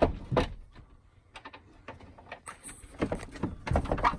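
Wooden door shutter being handled: two knocks at the start, then scattered clicks, and a quick run of knocks and metal rattles near the end as a hand works the shutter's barrel-bolt latch.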